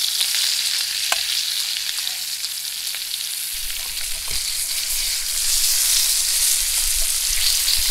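Cutthroat trout fillets sizzling steadily in hot fat in a steel pan over a camp stove, with a few light clicks of a fork against the pan.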